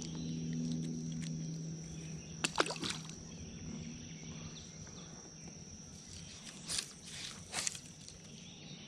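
A small bluegill splashes into the water when it is released over the side of a kayak about two and a half seconds in, with quieter sharp swishes of fly line being worked for a cast later on. A steady high insect drone and a low hum, which fades about four seconds in, run underneath.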